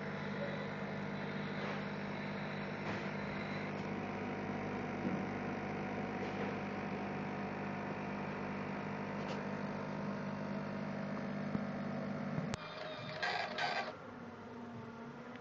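Orbital welding machine running with a steady hum that cuts off suddenly near the end, followed by two short bursts of noise.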